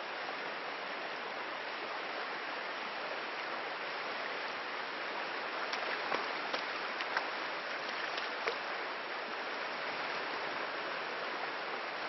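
Rushing river current, a steady even rush of water, with a few faint ticks near the middle.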